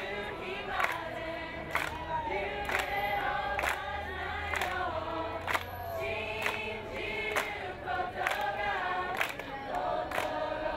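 Many voices cheering and yelling together at once, with sharp knocks scattered through.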